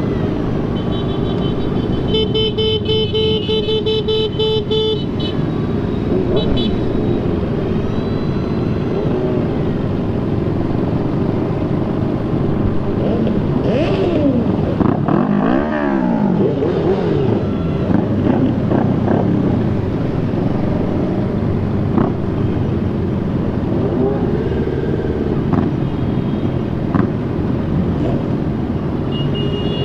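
Motorcycle convoy at low speed: engines running together, with revs rising and falling about halfway through. A horn beeps in rapid repeated toots from about two to five seconds in, and again at the end.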